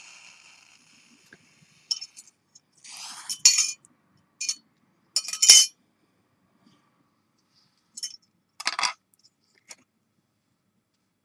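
Light metallic clinks and scrapes, about eight short irregular taps, as a sterling silver pendant and small metal tools are handled during soldering and quenching. A faint hiss fades out at the start.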